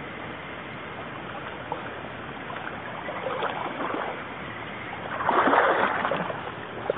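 Shallow, rocky mountain river flowing, a steady rush of water, with a louder splashing sound a little past five seconds in that lasts about a second.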